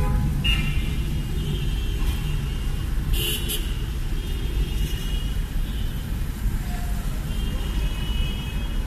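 A car driving in city traffic, heard from inside the cabin: a steady low rumble of engine and road noise, with several short, high-pitched horn toots from surrounding traffic and a brief hiss about three seconds in.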